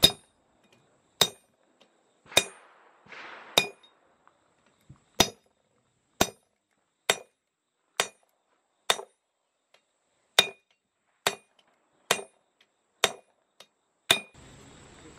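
Sledgehammer blows on a blacksmith's spring swage, about fourteen sharp, evenly paced strikes roughly one a second, each with a brief metallic ring. The swage is closing on a hot round bar to make it truly round.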